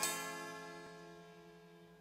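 A single bell-like chord, struck once and left to ring, fading steadily away: the opening chime of a TV theme song.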